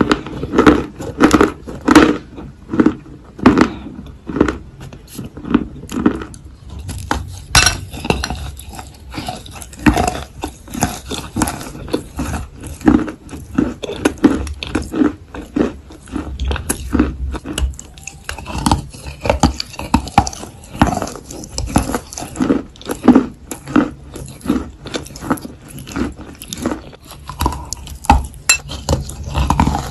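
Chalk pieces coated in clay paste being bitten and chewed, a steady run of sharp crunches about two a second.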